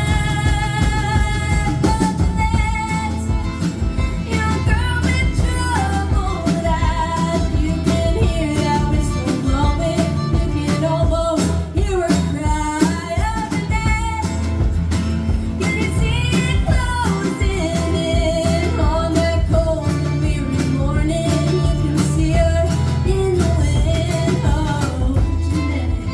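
Band playing a song: a wavering lead melody over guitar and bass, with a steady beat.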